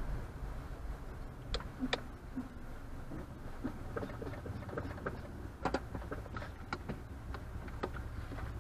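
Steady low road and engine rumble inside a moving car's cabin, with scattered light clicks and ticks at uneven intervals.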